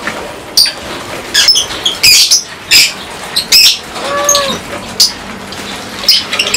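A flock of lovebirds chirping, a string of short, shrill calls one after another. About four seconds in comes one short, lower, rounded call from another animal.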